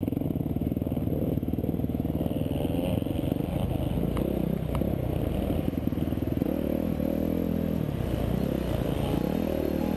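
Dirt bike engine running under changing throttle while riding a rough trail, its pitch rising and falling more from about two-thirds of the way in, with two sharp ticks about halfway through.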